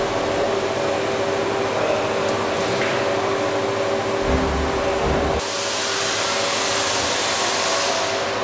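Steady machine hum and hiss from a robotic welding cell, with a few steady tones running through it. A low rumble comes in about four seconds in, and a little over five seconds in the sound switches to a brighter hiss.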